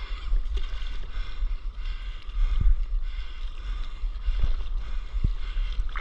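Water splashing and lapping around a stand-up paddleboard moving across the sea, with a steady low rumble of wind on the microphone.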